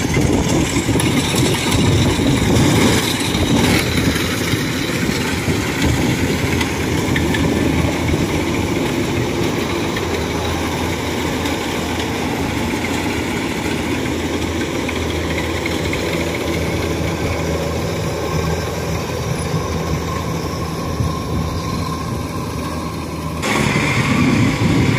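DC-93 rice combine harvester's diesel engine running steadily as it drives into the field and cuts. About a second and a half before the end the sound changes abruptly and gets louder: the engine of a small tracked rice-carrying vehicle.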